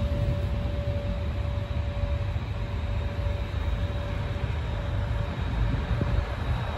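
Passenger train coaches rolling slowly past on the rails: a steady low rumble of wheels on track, with a faint steady whine that fades out near the end.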